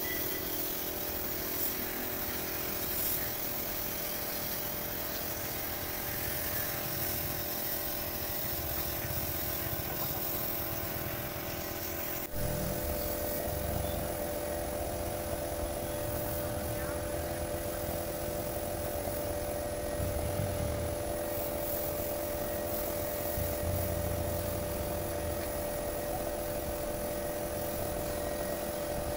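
Compressed-air paint spraying: a gravity-feed spray gun hissing as it sprays paint, over the steady hum of the compressor motor running. The hum shifts suddenly about twelve seconds in.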